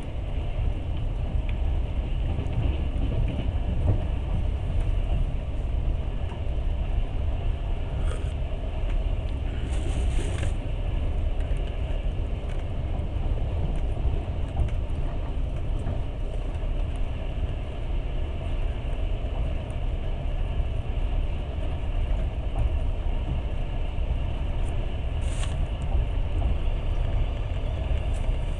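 Steady low rumble of a moving passenger train, heard from inside the carriage as it runs along the track. A brief high hiss comes about ten seconds in, and a shorter one near the end.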